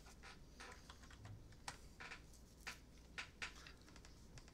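Faint, irregular clicking of typing on a computer keyboard, about a dozen light key strokes at uneven spacing.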